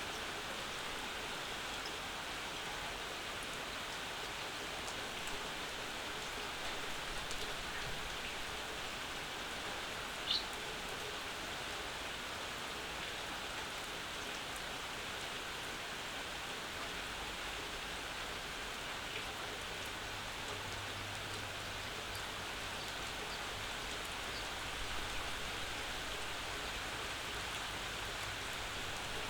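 Steady summer rain falling, an even hiss of drops. A single short, high sound stands out about ten seconds in.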